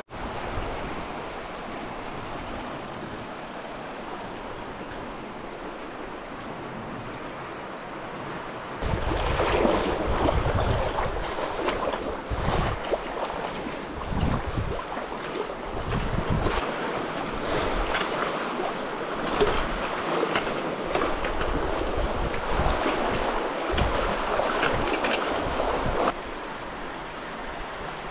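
Silty Paria River running high with spring snowmelt, a steady rushing of water. About nine seconds in it grows louder, with irregular low thumps from wind buffeting the microphone, and settles back to the steady rush near the end.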